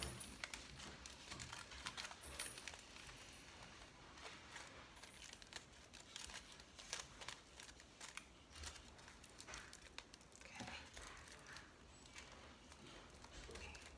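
Aluminium foil crinkling faintly as hands squeeze and pinch a foil sculpture, in irregular small crackles.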